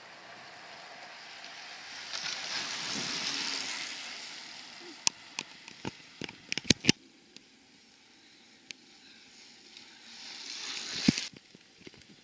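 Wind and tyre hiss from a small group of racing cyclists passing on a concrete road, swelling about two seconds in and fading again. A cluster of about eight sharp, irregular clicks follows about five to seven seconds in. The hiss swells once more and cuts off with a sharp click near the end.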